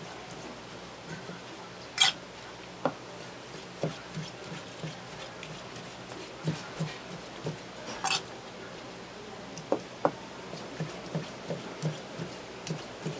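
Chef's knife slicing sea cucumber on a plastic cutting board: a run of dull, irregular knocks as the blade meets the board, with two sharper clacks, about two seconds in and again about eight seconds in.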